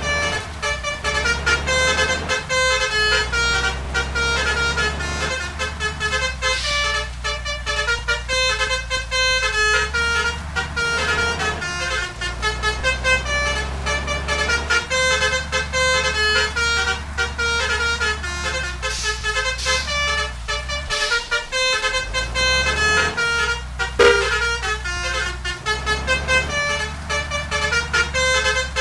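Bus 'telolet' basuri musical horn playing a tune in a long run of short, stepped notes, over the steady low hum of the bus's engine.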